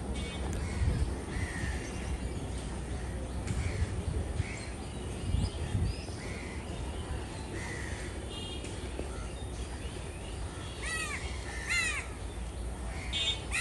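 Crows cawing again and again, with two louder caws close together near the end, over a low steady rumble.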